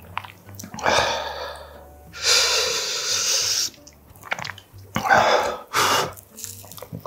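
A man puffing out breath hard three times, each puff about a second long, while eating a very spicy kimchi and pork rib stew.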